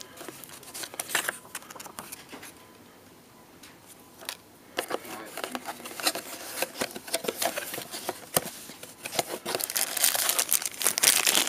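Paper inserts, cardboard box parts and plastic wrapping rustling and crinkling as they are handled while unpacking a phone box, quieter in the middle and busier and louder toward the end.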